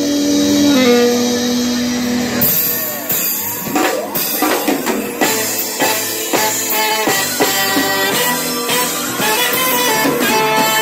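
Live band playing over the stage PA, recorded from the crowd: a held chord rings for the first couple of seconds, then drums and guitar come in with a steady beat of about two strokes a second.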